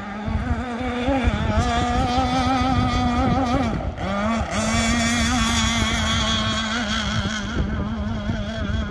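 Gas RC outrigger boat's Zenoah two-stroke engine running at high speed across the water, a steady high drone whose pitch wavers slightly. About four seconds in the pitch briefly drops, then picks up and holds again.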